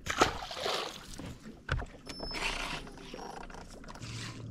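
A released bass splashes into the lake, followed by patches of water and handling noise. A low steady hum starts near the end.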